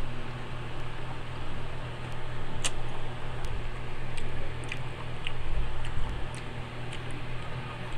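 Wet chewing and mouth clicks of someone eating ripe mango slices, scattered short sharp clicks over a steady low hum.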